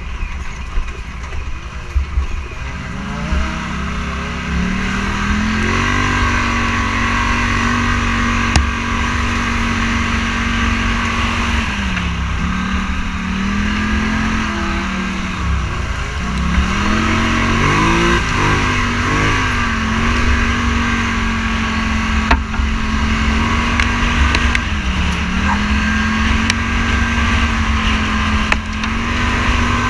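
Engine of a Scrambler 1000 off-road vehicle heard from on board, picking up revs a few seconds in and then running at fairly steady speed. The revs dip and pick up again three times, the last near the end, over steady wind rumble on the microphone.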